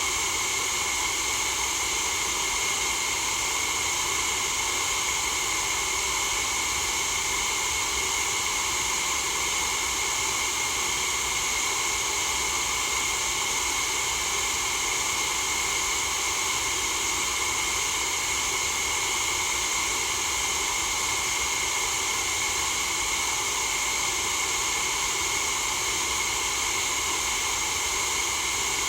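White-noise sound effect: a steady, unchanging hiss, brightest in the high treble.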